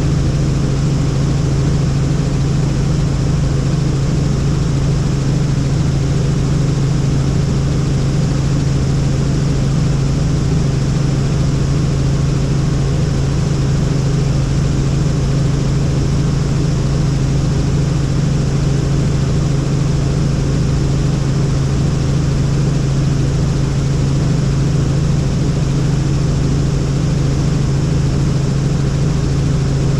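Helicopter in flight: a loud, steady drone of engine and rotor noise with a strong low hum that holds constant throughout.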